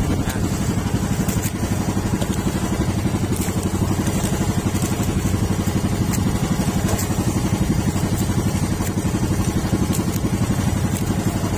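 Small engine of a motorized outrigger boat running steadily with a fast, even putter.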